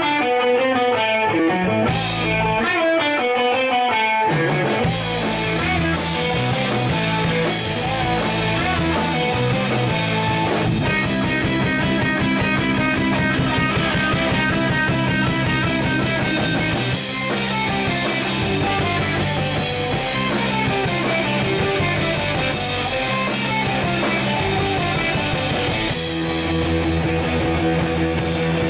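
Live rock band (electric guitar, bass guitar, drum kit and keyboards) playing an instrumental passage. For about the first four seconds only the higher parts play. Then bass and drums come in and the full band plays on with a steady beat.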